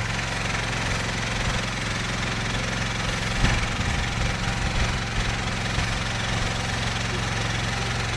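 Steady hiss of a firefighting hose nozzle spraying water, over the steady hum of an engine running, likely the fire pump's. A short knock about three and a half seconds in.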